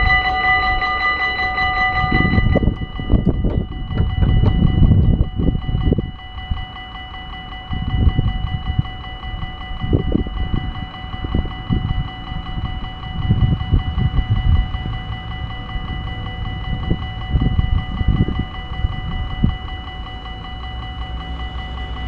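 Dutch level-crossing warning bell ringing in rapid pulses while the barriers lower. About two and a half seconds in it drops to a much softer ringing that carries on with the barriers closed. Irregular low rumbles run under it.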